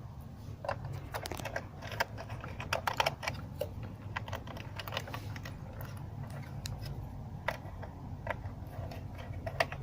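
Irregular small plastic clicks and taps of hands working the wire terminals of a sprinkler controller with a small screwdriver, over a low steady hum.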